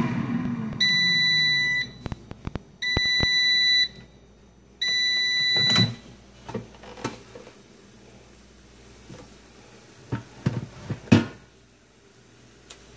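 GoWISE USA electric air fryer sounding its end-of-cooking alarm: three long, high beeps, each about a second long and two seconds apart, while its fan winds down with a falling hum. Then a few plastic clunks and knocks as the basket is handled.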